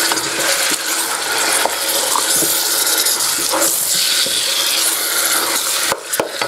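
Raw chicken pieces sizzling in hot oil with fried onions and spices in a steel pot, stirred with a wooden spoon that gives small scrapes and knocks against the pot. The sizzle drops briefly near the end.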